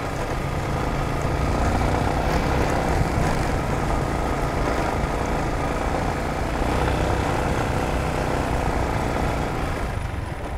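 Yamaha motor scooter running steadily while being ridden, its engine sound mixed with wind and road noise on the rider's camera microphone.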